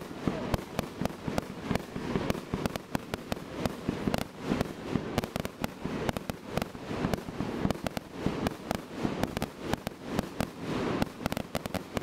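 Fireworks firing in rapid succession: a dense run of sharp pops and bangs, several reports a second, as shells rise and burst.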